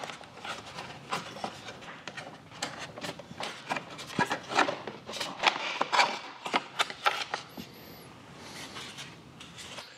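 Passenger footrest cover being worked loose and lifted off a Honda Gold Wing motorcycle: irregular scraping, rubbing and light clicks of the trim piece against the frame.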